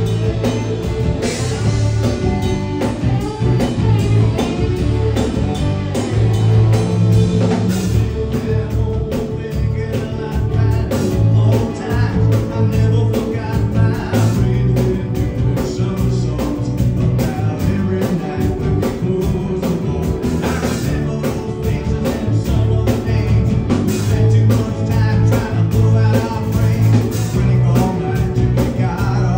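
Live rock band playing a song with singing, electric guitar, bass and drums over a steady beat, heard from the audience in a club.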